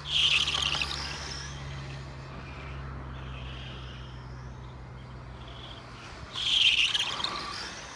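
Loud high-pitched squeaks, one right at the start and another about six and a half seconds in, each about a second long, with fainter squeaks between them. Under them runs a low steady hum that fades out about six seconds in.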